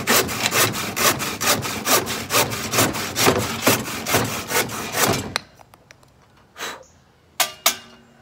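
Hand saw cutting through a wooden post in quick, even strokes, about four a second. It stops about five seconds in and is followed by a couple of short knocks.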